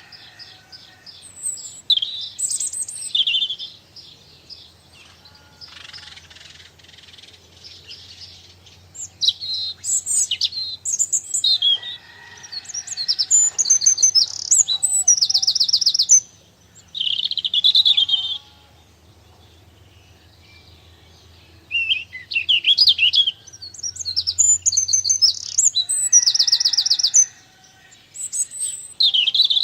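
Small garden birds chirping and singing in high calls and fast trills, in bursts of a few seconds with short pauses between them.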